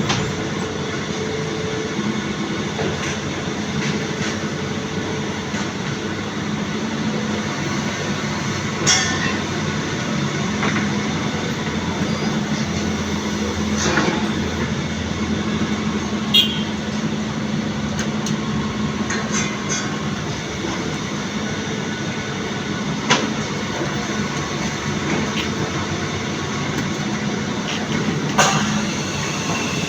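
Excavator's diesel engine running steadily, with a few short sharp knocks now and then.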